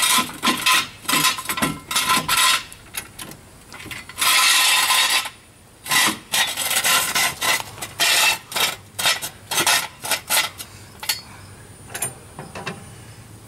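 Hydraulic floor jack being pumped by its handle to lift a car: a quick series of rasping, slightly squeaky strokes, with one longer stroke about four seconds in, thinning out near the end.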